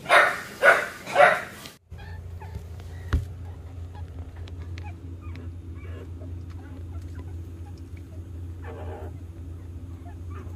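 A small dog gives three short, loud, honking barks in the first second and a half. After a brief gap comes a steady low hum with faint ticks and rustles, and a short faint squeaky call about nine seconds in.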